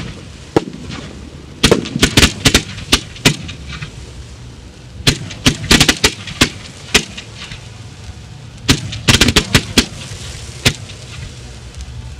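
Fireworks going off: sharp bangs and crackling reports in several quick clusters, a few seconds apart.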